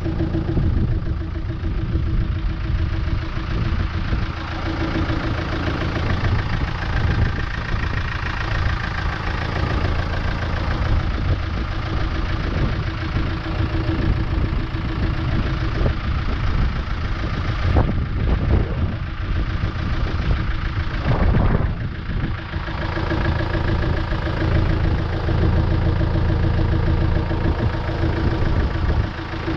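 Land Rover Defender's engine running steadily as the 4x4 drives a dirt track. The engine note dips briefly about two-thirds of the way through.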